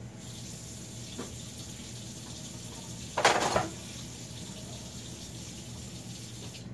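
A full gallon plastic pitcher of tea set down on the kitchen counter, with one brief loud slosh and knock a little over three seconds in, over a faint steady hiss.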